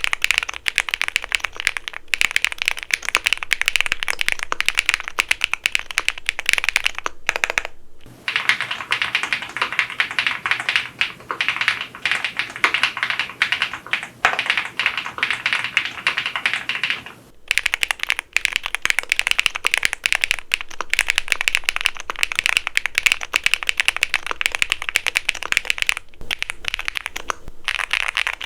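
Fast, continuous typing on an EPOMAKER x Feker Galaxy80 tenkeyless mechanical keyboard, keystrokes clacking densely. It comes in three takes with short breaks about seven and a half and seventeen seconds in; the middle take has its highest treble cut off and a faint low hum beneath.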